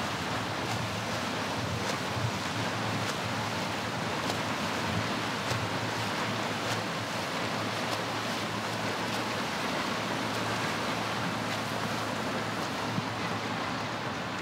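Steady wash of water noise from swimmers splashing through butterfly strokes in an indoor pool hall, over a low steady hum. Faint sharp taps come about once a second.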